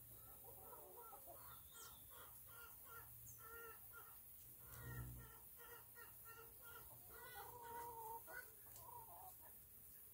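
Faint clucking of chickens, short calls repeated several times a second, with a soft low bump about halfway through.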